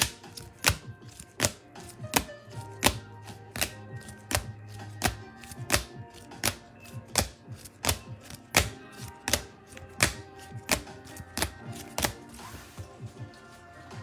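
Background music with a steady beat: a sharp percussive hit about every three-quarters of a second over held notes.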